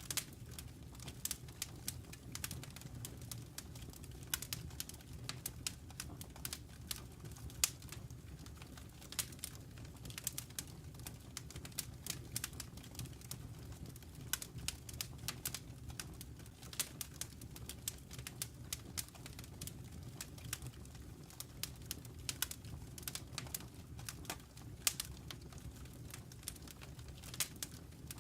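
Wood fire burning in a fireplace, crackling with irregular sharp pops and snaps, several a second, over a steady low rumble.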